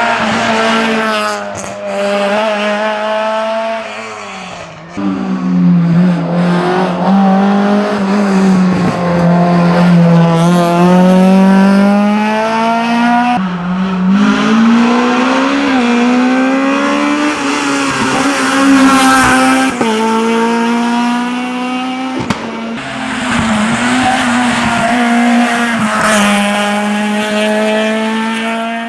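Honda Civic VTi's four-cylinder VTEC engine revving hard on a hillclimb run, its pitch climbing and falling again and again, with sudden drops about four seconds in and again near the middle at gear changes or lifts for corners.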